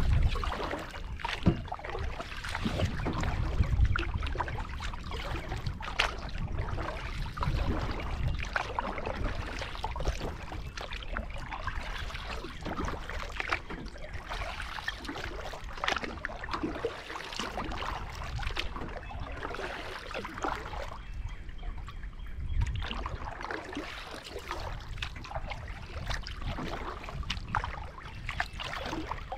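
Kayak paddle strokes: the blade dipping and pulling through lake water, with irregular splashes and dripping. A low rumble of wind buffets the microphone.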